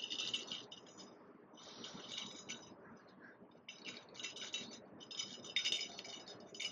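Fishing reel ratcheting in repeated bursts of rapid clicks, each about half a second to a second long, as a hooked carp is fought on the line.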